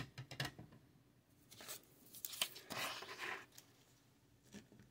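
A printed paper sheet rustling and crinkling as it is picked up and handled, after a light click at the start.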